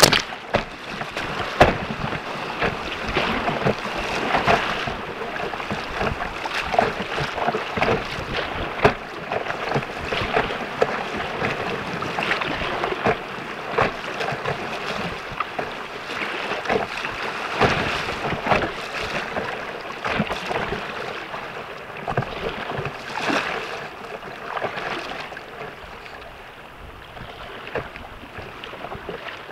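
Rapids rushing and waves splashing against the bow of a foam kayak, with many sharp slaps and splashes and spray breaking over the camera at the start. The water noise eases off near the end as the boat leaves the rough water.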